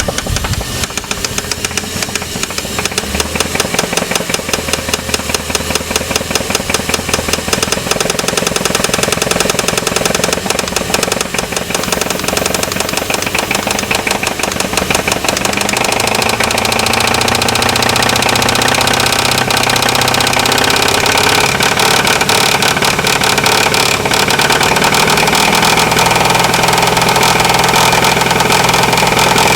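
Jeep 4.7-litre V8 engine running with a rapid, regular knock. About halfway through, it grows louder and more even.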